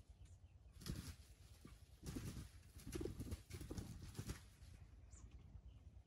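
Junglefowl rooster's feet crunching and rustling dry leaf litter as it walks: a soft step about a second in, then a run of several steps between two and four and a half seconds in.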